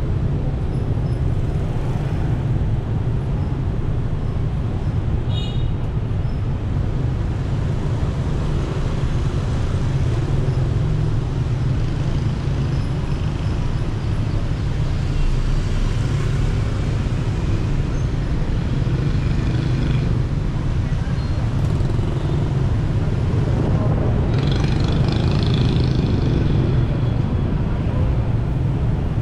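Steady low rumble of a vehicle driving through city street traffic, with the noise of surrounding motorbikes and cars. There is a short high-pitched sound about five seconds in, and the traffic noise grows louder and brighter for a few seconds near the end.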